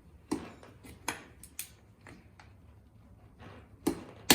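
Sharp metallic clicks and clinks of a torque wrench and socket being handled and set up, a few scattered in the first two seconds and louder ones near the end.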